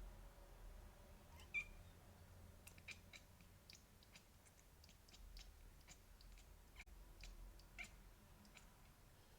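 Domestic cat chattering at a bird it sees outside: a quiet, irregular run of short clicks and chirps, starting about a second and a half in.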